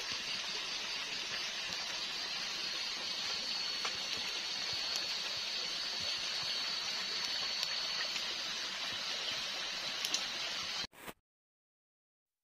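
Wood campfire burning with a steady hiss and a few faint pops, and a faint thin high tone through the middle. The sound cuts out suddenly about a second before the end.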